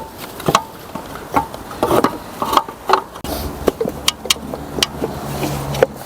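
Irregular clicks and light knocks of engine parts being handled as an ignition coil is fitted back into a Mercedes CL600 V12 engine bay.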